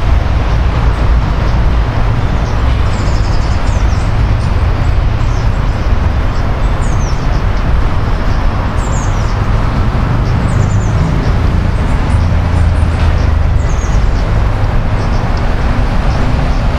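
Steady low rumble of city road traffic, with faint short high bird chirps every few seconds.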